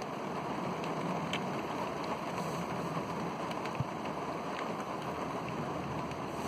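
Heavy rain falling steadily, with scattered drops ticking nearby and a single short knock nearly four seconds in.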